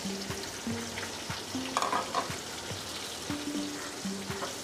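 Sliced onions sizzling as they fry in hot oil in an aluminium pot, while a metal ladle stirs them and taps against the pot several times.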